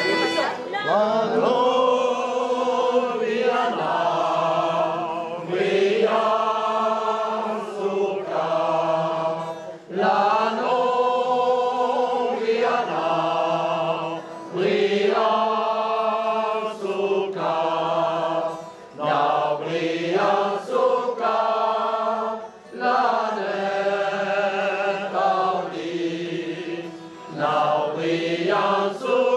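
Amateur mixed choir singing a Béarnais folk song together, in phrases of a few seconds with short breaths between them.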